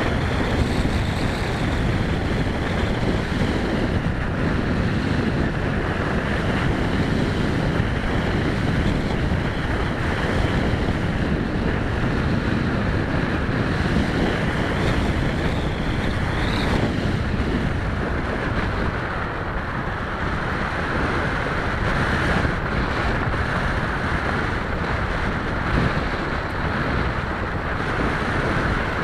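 Wind rushing over the onboard camera of an EPP foam FPV plane in flight, with the faint whine of its electric motor and propeller wavering in pitch and climbing briefly about two-thirds of the way in.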